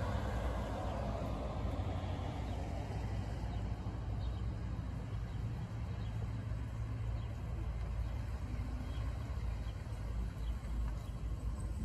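Pickup trucks driving past one after another on a road, their engine and tyre noise over a steady low rumble.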